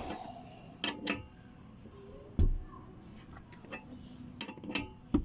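Metal tools and bicycle parts clinking and knocking, a handful of separate sharp clicks with one heavier knock a little over two seconds in, as a bottom bracket or crank part is worked loose.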